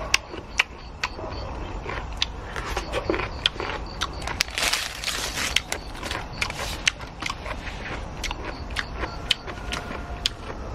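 Disposable wooden chopsticks in a paper sleeve being handled: scattered sharp clicks and taps, with about a second of paper rustling roughly four and a half seconds in.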